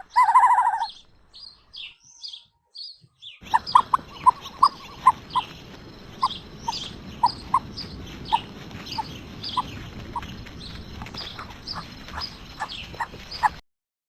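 Birds calling: a loud drawn-out call right at the start, a few quick high chirps, then from about three seconds in a long run of short sharp chirps over a steady background hiss, which cuts off suddenly near the end.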